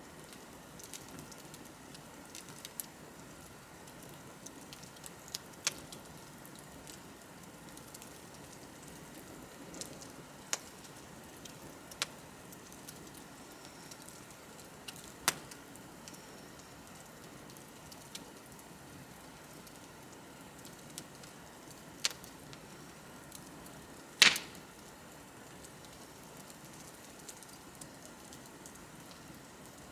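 Wood bonfire crackling: a soft steady hiss under irregular sharp pops and snaps, one pop clearly louder than the rest late on.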